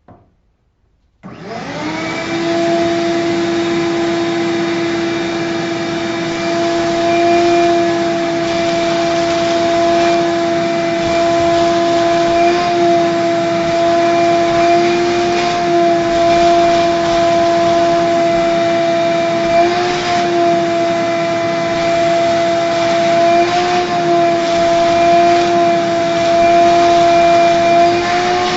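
Vacuum cleaner switched on about a second in, spinning up quickly and then running loud and steady with a high whine, its pitch dipping slightly now and then as it sucks up dirt from a car interior.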